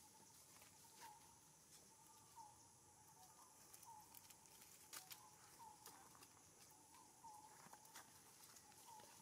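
Near silence: faint outdoor ambience with a high hiss, a faint short chirp repeating a little more than once a second, and a few faint clicks.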